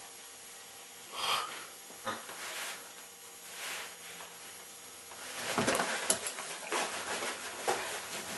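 A dog whining in an odd, breathy, Chewbacca-like way while trying to get at his football. There are a few separate short whines at first, then a denser run of whines with knocks and scuffling from about five seconds in.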